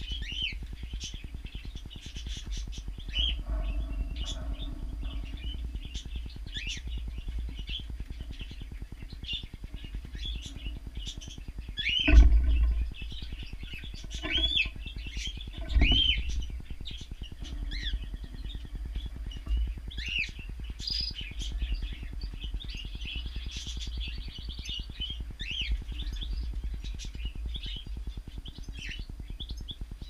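Cockatiels chirping again and again, with three louder calls about two seconds apart near the middle.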